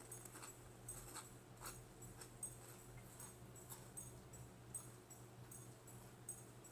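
Quiet chewing: faint, crisp mouth clicks about twice a second over a steady low electrical hum.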